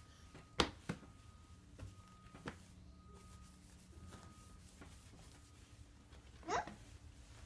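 A crawling baby's hands and a wipe patting and rubbing on a wooden parquet floor: four short sharp taps in the first couple of seconds, the first the loudest, over quiet room tone. A short rising squeak comes near the end.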